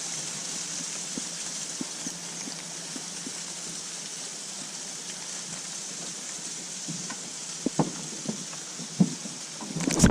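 Steady hiss of moving water, with a few light clicks and knocks in the last few seconds.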